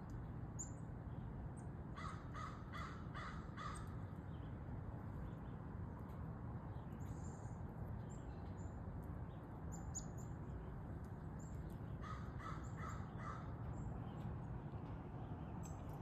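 A crow cawing five times in a quick even series, then four times more about ten seconds later. Short high chirps from small birds fall in between, over a steady low background rumble.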